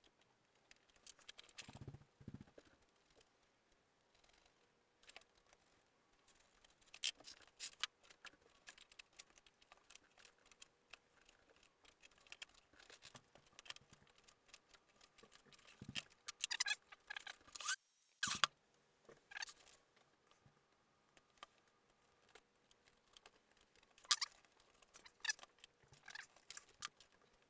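Utility knife blade scraping and cutting into a foam wing, with scattered scratches, small clicks and handling noises, faint and irregular. About eighteen seconds in the sound drops out briefly.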